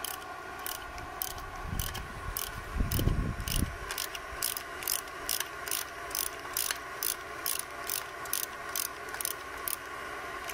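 Ratchet wrench with an 11 mm socket backing out a rusted cast-iron exhaust manifold stud, its pawl clicking on each return stroke at about two strokes a second. A low rumble, the loudest sound, comes about three seconds in.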